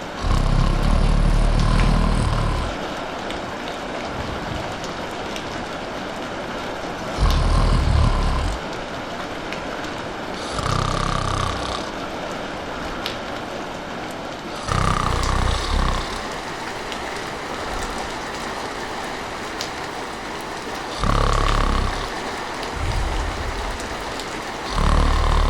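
A person snoring, about six loud snores spaced a few seconds apart, over the steady hiss of rain.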